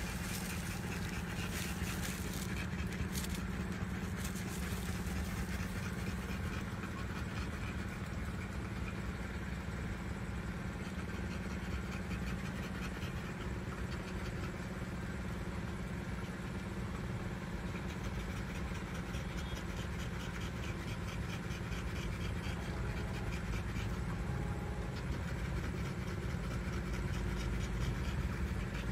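Mother dog panting steadily while nursing her newborn litter, over a constant low hum.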